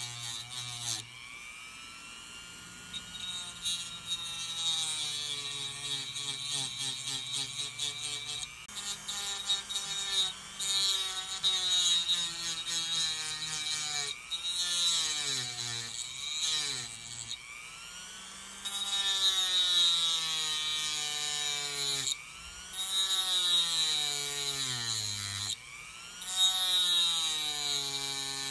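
Dremel rotary tool with a cut-off wheel cutting through a small part. The motor's whine sags in pitch each time the wheel bites and climbs back as it is eased off, with a gritty grinding hiss over it, over and over.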